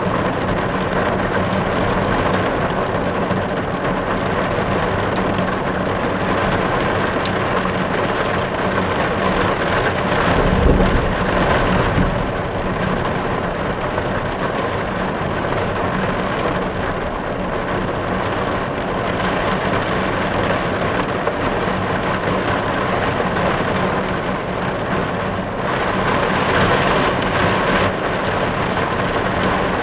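Steady rain falling on a car, heard from inside the cabin, with a brief low rumble about a third of the way in.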